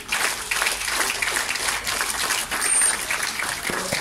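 Audience clapping along in time to a beat, with one brief high whistle near three seconds in.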